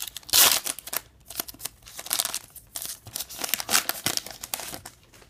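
A trading card pack wrapper is torn open and crinkled by hand: irregular crackling rustles, loudest about half a second in and fading out near the end.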